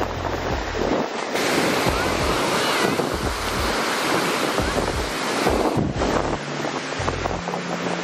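Ocean surf breaking and washing up on a sandy beach, with wind buffeting the microphone in uneven low gusts.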